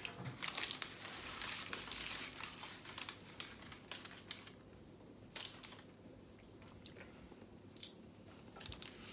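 Crisp crackling and crunching as a piece of thin, crisp-crusted pizza is broken off and lifted from a baking-paper-lined tray, with the paper crinkling: dense crackling for the first couple of seconds, then a few scattered sharp cracks.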